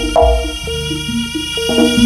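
Live jaranan gamelan accompaniment: a drum beats under tuned bronze percussion striking a quick, repeating pattern of notes.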